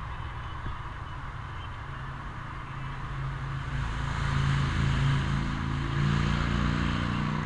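A motor vehicle on the adjacent highway grows louder from about halfway in, a low engine hum with a steady pitch, over a steady rushing hiss of wind from the moving bicycle.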